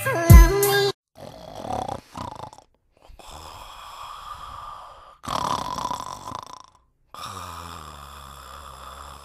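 Music slows down with a falling pitch and cuts off about a second in. A man then snores in his sleep, with a noisy snore or breath every couple of seconds.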